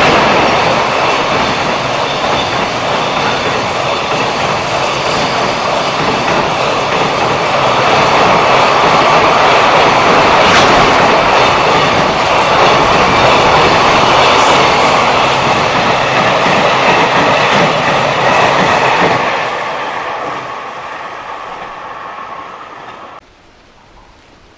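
A JR Freight freight train passing close by at speed: a long, loud rush of wheel and rail noise. It fades from about 19 seconds in and cuts off abruptly near the end.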